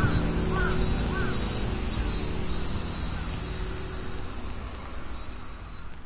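Outdoor ambience fading out: a steady high-pitched shrill hiss over a low rumble, with three small chirps in the first second.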